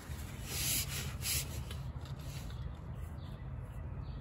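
A shop towel rubbing and wiping around the oil filter mount under the engine, with a couple of brief scratchy swipes in the first second and a half.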